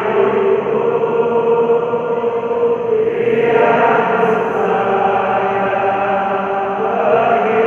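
A stadium crowd of thousands of football supporters singing together in long held notes, with the tune moving to a new note about three seconds in.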